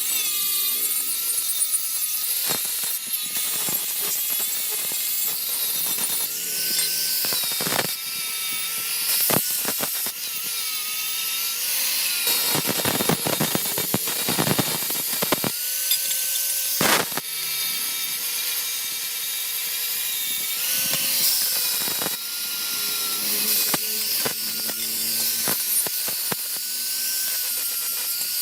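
Electric power tool working metal, its motor tone dipping and recovering again and again as it is loaded, with a few sharp knocks along the way.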